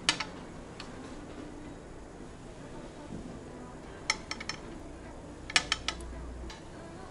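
Light clinks and clicks of small glass lens vials and plastic contact-lens tweezers handled on a glass counter: a few just at the start, then two quick runs of three or four clicks about four and five and a half seconds in.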